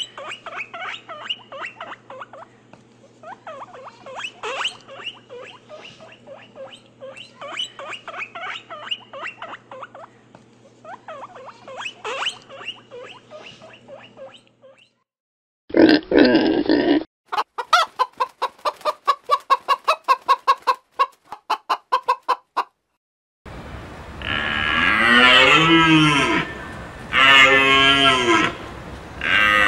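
A run of different animal calls. First a long stretch of many quick small calls over a low steady hum, then a short loud burst and a rapid series of pulses. Near the end come loud, drawn-out calls that rise and fall in pitch.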